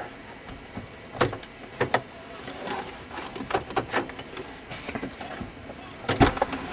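Irregular clicks and knocks from a camcorder being handled inside a truck cab, over a low, steady background. The loudest knocks come near the end.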